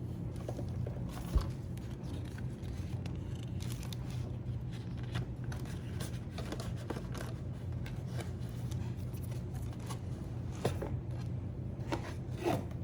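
Hands feeding label paper into a thermal label printer and setting its paper guides: scattered light plastic clicks, taps and paper scrapes over a steady low hum, with a sharper knock about a second in.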